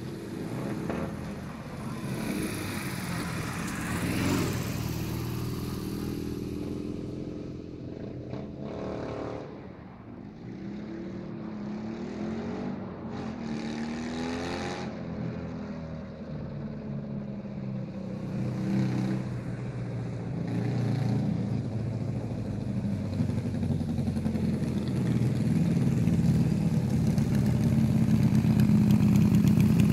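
A sidecar motorcycle's engine comes up the road and passes about four seconds in, its pitch dropping as it goes by. From about twenty seconds in, the go-kart's 650 cc Dnepr MT10-36 flat-twin engine grows steadily louder as it drives toward the camera, and is loudest at the end.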